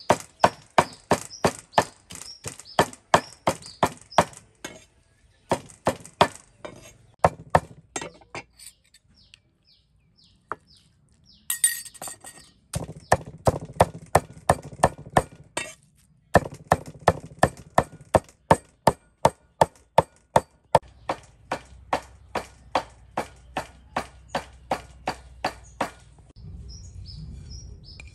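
Steel cleaver chopping raw pork on a wooden chopping block in fast, even strokes, about four to five a second, mincing the meat. The chopping stops for a few seconds in the middle, then resumes, growing lighter near the end.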